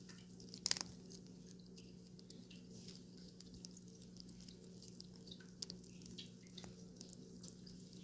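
Cats licking and chewing food, heard as faint, irregular small wet clicks and smacks, with a sharper click just under a second in. A steady low refrigerator hum runs underneath.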